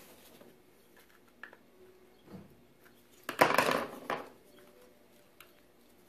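Handling noise of a dishwasher's corrugated plastic fill hose and its plastic clip being worked free by gloved hands: a few light clicks, then one loud clatter of just under a second a little past halfway.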